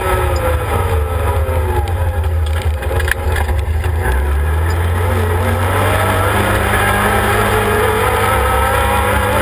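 Arctic Cat Wildcat 1000 side-by-side's V-twin engine under way, heard from inside the open cab. The engine pitch falls over the first few seconds as it slows, then rises again about halfway through as it accelerates, over a heavy low rumble.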